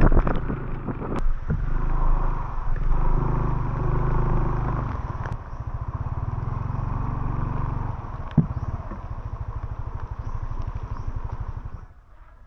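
Motor scooter engine running at low riding speed, louder for the first few seconds and then settling lower, with a sharp knock about eight seconds in. The engine sound stops suddenly near the end.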